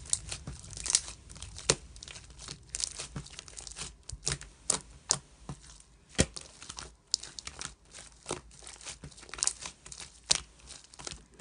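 Slime being pressed and pulled by hand, making a run of irregular sticky pops and crackles.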